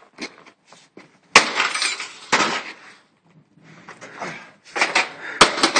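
Heavy blows from a pick or axe smashing an old desktop computer, its power supply targeted: several hard impacts, each with crunching and clinking of breaking metal and plastic, the loudest a cluster near the end.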